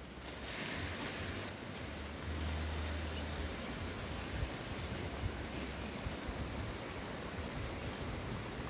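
Steady outdoor hiss with wind buffeting the microphone in low rumbles, strongest about two to three seconds in.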